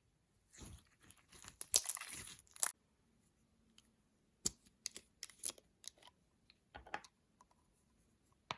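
Close-up crunching and crinkling as slime and makeup are worked by hand: a dense crackly stretch in the first couple of seconds, then scattered sharp pops and clicks, with a last sharp click near the end.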